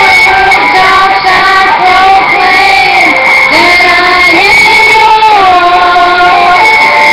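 Loud music with high singing voices, held notes that slide from pitch to pitch.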